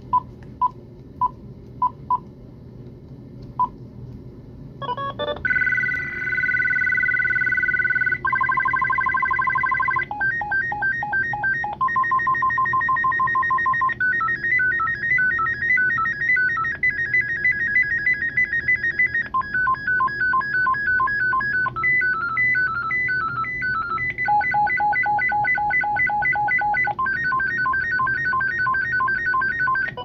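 GE 28112EE2 DECT 6.0 cordless phone handset: five short key-press beeps, then its built-in ringer tones playing one after another as each is selected. Each is a short electronic melody of beeping notes lasting two or three seconds before the next takes over.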